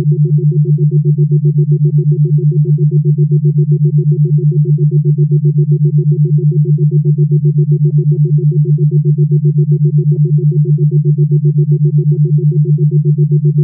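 A low synthesized tone with a fainter higher tone above it, held at one pitch and pulsing evenly on and off several times a second, the way an isochronic tone does.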